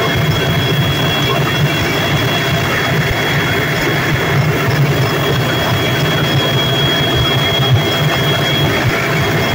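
Helicopter turbine engines and rotor heard from inside the cabin: a loud, steady drone with a constant high whine, as the helicopter moves low over the ground.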